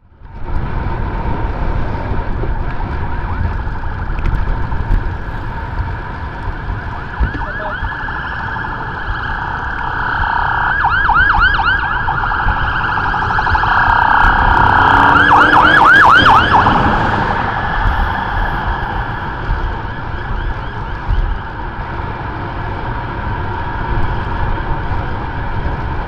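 Several police car sirens wailing, with fast yelping runs about ten seconds in and again around fifteen seconds in, growing loudest around fifteen to sixteen seconds before easing off, over a steady low rumble.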